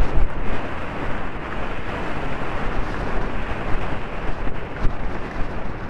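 Wind buffeting the microphone of a rider's helmet camera at a gallop: a loud, uneven rushing and rumbling.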